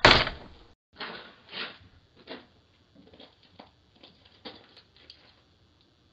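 A loud thud right at the start, then footsteps crunching and clicking on a porch and icy ground, heard through a doorbell camera's microphone, about one step every half second to second and fading near the end.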